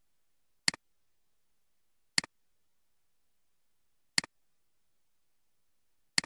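Four computer mouse clicks, each a sharp press followed at once by a fainter release click, spaced about one and a half to two seconds apart with near silence between.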